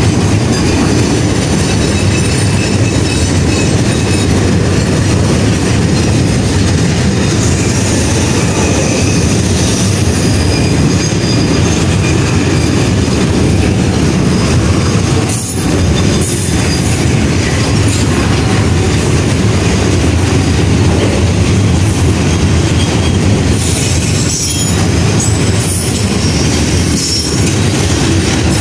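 Loaded Pertamina fuel tank wagons of a freight train rolling slowly past close by, wheels rumbling and clattering on the rails with some wheel squeal, running at about 20 km/h under a track-work speed restriction.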